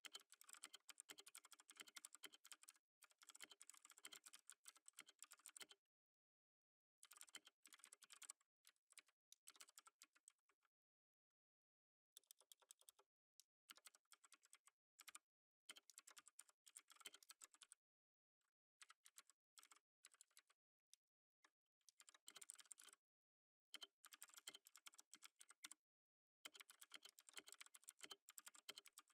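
Soft typing on a computer keyboard: rapid key clicks in runs of a few seconds, broken by short pauses.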